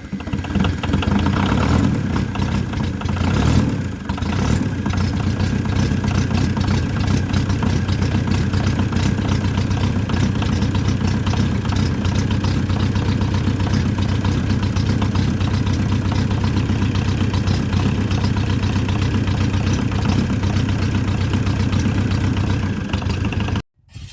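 Leyland tractor's diesel engine running just after being started from long disuse, uneven for the first few seconds and then settling into a steady idle. The sound cuts off suddenly near the end.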